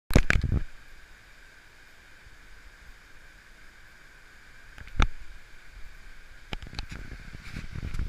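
A shallow stream running over rocks, a steady faint rush. The camera is handled with loud knocks at the start, a sharp click about five seconds in, and more bumps near the end as it is turned around.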